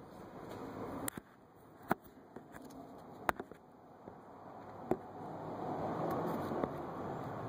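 About five sharp clicks, spread a second or so apart, over a low rustling hiss that grows louder after about five seconds; handling noise while working under a car.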